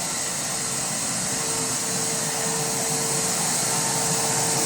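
Sandblaster blasting the prop shaft cover: a steady, high hissing rush of compressed air and abrasive, growing slightly louder.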